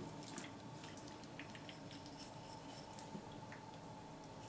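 Faint, soft wet cutting sounds of a knife slitting open the belly of a scaled crucian carp, with a few light scattered clicks.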